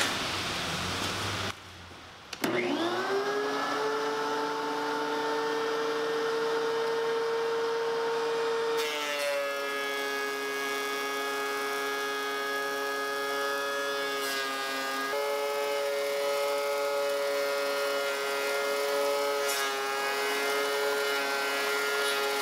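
DeWalt benchtop thickness planer starting up, its whine rising to full speed within about a second, then running steadily. About nine seconds in the sound grows fuller and noisier as a board is fed through and planed.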